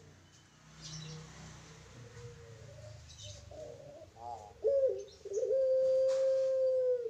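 Young barbary dove (puter pelung) cooing: a few short wavering notes, then about four and a half seconds in a louder note, followed by one long, steady coo held for almost two seconds.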